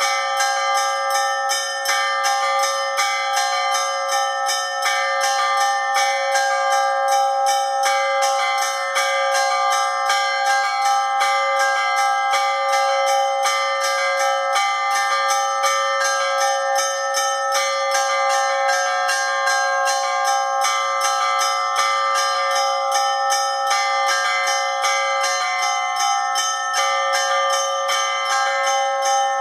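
Church bells being rung in a continuous, rapid peal: bells struck about three to four times a second over several long-ringing tones, without a break.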